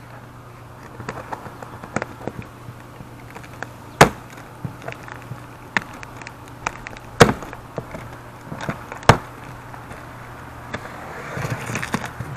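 Cardboard box being opened with a utility knife: sharp clicks and snaps as the plastic packing strap and packing tape are cut, the loudest about four, seven and nine seconds in, then a longer scraping noise near the end as the knife slits the tape along the flaps.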